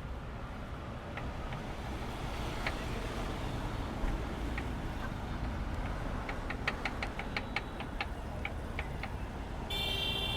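Steady street traffic noise, with a run of sharp knocks at about four a second from about six to nine seconds in, and a horn sounding near the end.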